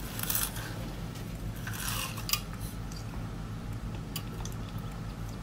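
Close-up eating sounds of someone biting into geoduck clam siphons: wet mouth noises and a few sharp clicks.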